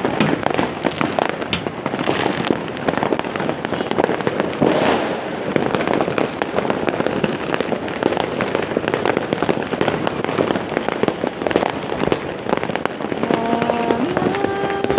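Fireworks going off nonstop, a dense, continuous mass of overlapping pops and bangs with no pause. Near the end a few short held tones sound over it.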